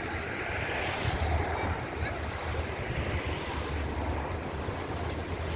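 Sea waves washing onto the shore in a steady hiss that swells and eases, with wind buffeting the microphone in low gusty rumbles.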